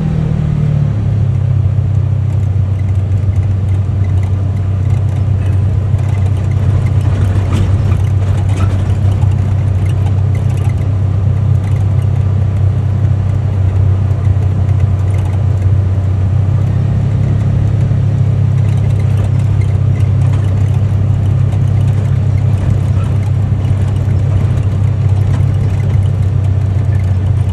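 UTV engine running steadily while the machine is under way, a loud, even low drone.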